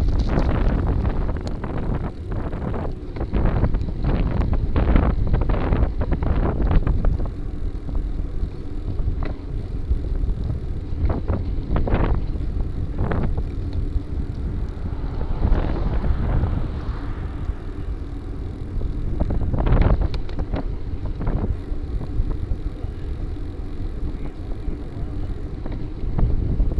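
Wind buffeting the microphone of a handlebar camera on a moving bicycle, a steady low rumble with the tyre rolling on asphalt. Scattered sharp knocks run through it, most often in the first several seconds, and a hiss swells and fades about fifteen seconds in.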